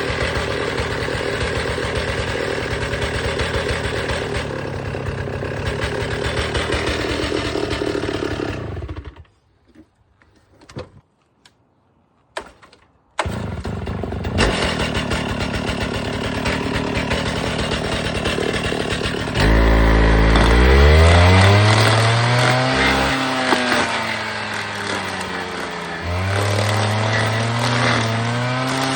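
Alpine Magnum stump grinder's engine running while its Greenteeth cutter wheel grinds a stump. About nine seconds in, the sound cuts off abruptly for a few seconds, leaving a few faint clicks, then resumes. Past the halfway point it turns louder, and the engine's pitch rises and dips again and again as the wheel takes load.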